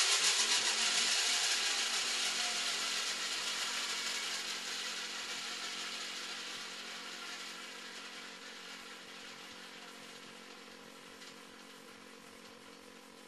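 T-REX 500 RC helicopter's main rotor and drivetrain spooling down. The whir of the spinning blades and gears fades steadily from loud to faint as the rotor slows.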